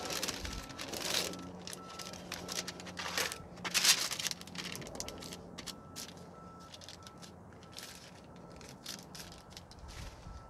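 Masking paper crinkling and crackling as short pieces of masking tape are pressed down along its edge, with the loudest crackle about four seconds in.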